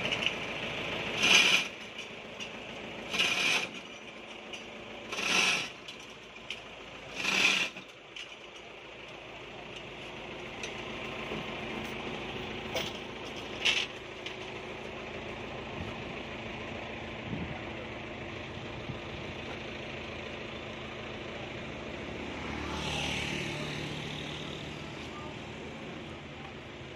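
A truck engine idling steadily, rising briefly near the end. Over it in the first part come four short loud noisy bursts about two seconds apart, and one shorter one later.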